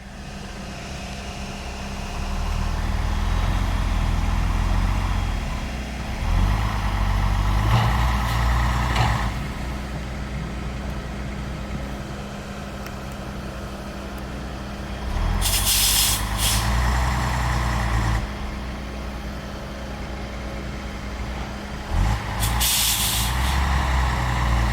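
Heavy diesel machinery engine running and revving up in four surges, with two short sharp hisses of air, one a little past the middle and one near the end.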